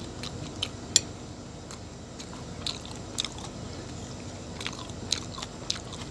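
Metal spoon clicking and scraping against a plate as a slice of pizza is cut and scooped, in sharp separate clinks every second or so, the loudest about a second in. Chewing sounds fill the gaps between them.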